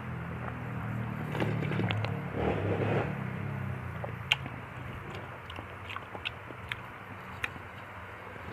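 A person chewing and eating a fruit soup of fruit pieces and nata de coco, with wet mouth sounds and a scatter of sharp short clicks. A low hum underneath fades out about three seconds in.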